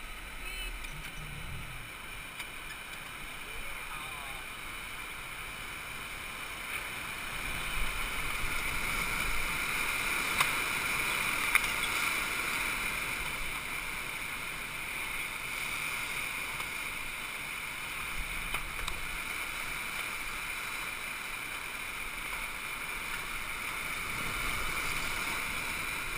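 River rapid whitewater rushing past a sweep boat: a steady rush of churning water that grows louder about eight seconds in and eases a little later.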